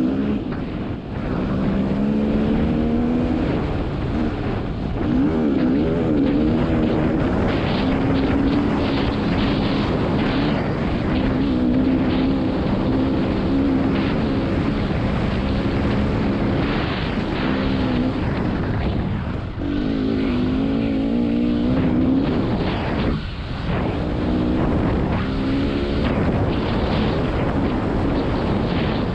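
GasGas two-stroke dirt bike engine running while under way, its pitch rising and falling with the throttle and dropping off briefly twice in the later part. Wind noise on the microphone comes with it.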